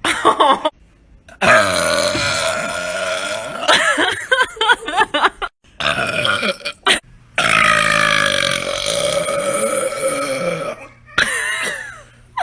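A woman belching: a short burp, then two long drawn-out burps of several seconds each, the first breaking into a rapid stutter at its end, and a brief final one near the end.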